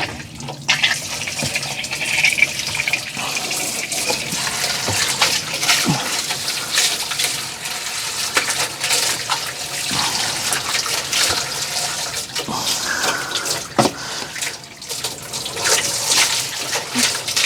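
Water from a hose running steadily into a front-load washing machine's drum, splashing, to flush leftover debris out through the unclogged drain hose and pump.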